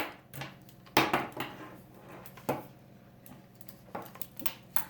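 Sharp clicks and knocks of metal detector parts being handled and fitted together during assembly, a second or so apart, with a quick cluster of clicks near the end.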